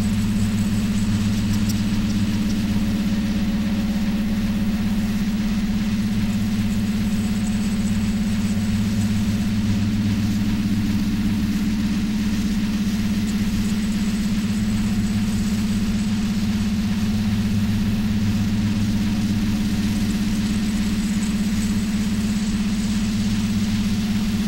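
A steady, low electronic drone over a constant hiss. It is environmental and industrial sound fed through a mixer oscillator and a Korg analog synthesizer.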